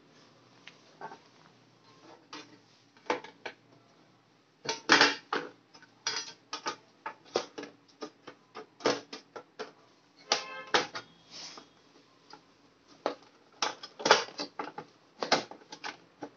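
Thin sheet-metal top cover of a DVR case being handled and fitted onto the chassis: irregular sharp metallic clicks, knocks and scrapes, starting about three seconds in, with a short rapid rattle about ten seconds in.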